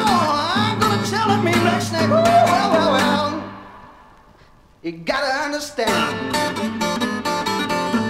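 A 1969 blues-rock band recording with guitar out front, its notes bending up and down in pitch over a steady bass. Just past three seconds the music dies down almost to nothing, and the full band comes back in suddenly about five seconds in.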